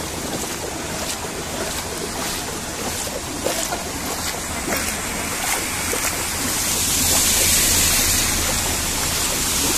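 Steady rushing and splashing of floodwater on a flooded road. It swells about seven seconds in as a car drives through the water close by.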